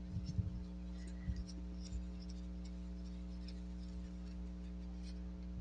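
Steady low hum with several fixed tones throughout. Over it come a few faint light taps and knocks in the first two seconds, from a paintbrush working paint on a plastic palette.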